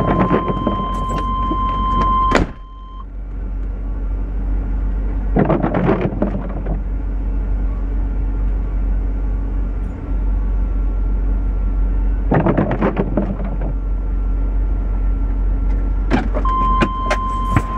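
Chevrolet Silverado cab with the engine idling and a steady warning chime sounding while the driver's door is open. The door shuts with a knock about two and a half seconds in and the chime stops. Two bursts of muffled clanking come from outside as the trailer's safety chains are hooked up, and the chime returns near the end as the door opens again.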